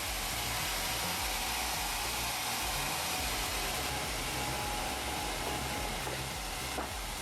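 Steady hissing machine noise with no clear pitch, level and unbroken.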